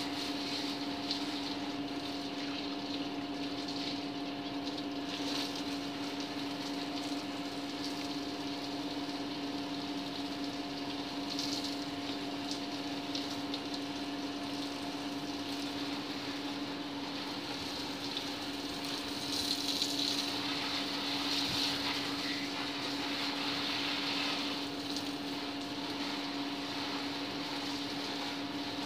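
Electric water pump by a water storage tank running steadily: a constant hum over a rushing noise, which swells a little about two-thirds of the way through.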